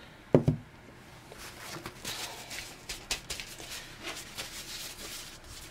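A single knock on the work table about half a second in, then a run of light crinkling and rustling with small clicks as hands handle and press a thin embossed metal foil sheet.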